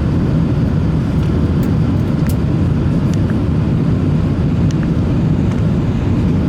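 Steady low rumble inside the cabin of an Airbus A380 during its climb: engine and airflow noise from its Rolls-Royce Trent 900 engines, with a few faint clicks in the cabin.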